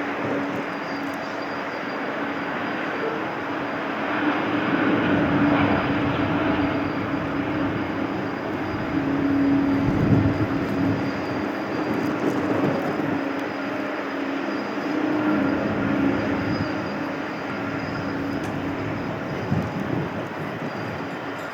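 Jet engine noise from an Airbus A350-900's Rolls-Royce Trent XWB turbofans: a continuous rushing roar with a steady held tone, swelling louder about a quarter of the way in and again near the middle.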